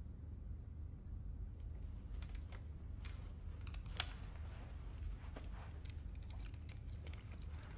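Faint scattered clicks and cloth rustles over a low steady hum, with one sharper click about four seconds in: hands and sleeve moving as wire-rimmed glasses are taken off.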